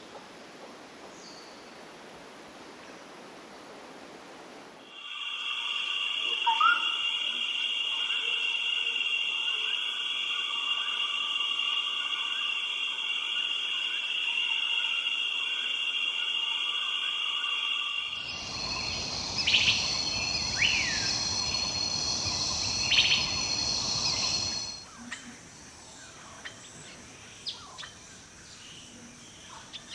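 Tropical rainforest ambience: a faint natural background, then a loud, steady, high-pitched chorus that cuts in suddenly about five seconds in and changes to a different chorus with a lower rushing layer. Scattered bird calls and chirps sound over it, and it falls back to a quieter bed of chirps near the end.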